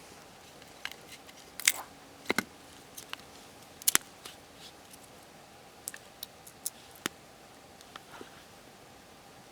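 Dry firewood snapping and crackling: a dozen or so sharp, irregular cracks, the loudest about two and four seconds in.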